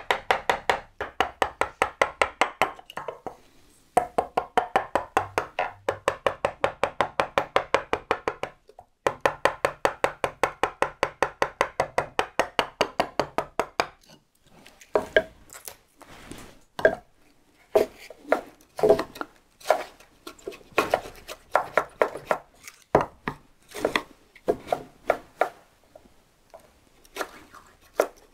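Wood chisel being struck into wood with rapid, even light taps, about five a second, in three runs broken by short pauses. About halfway through the taps give way to slower, irregular, separate blows.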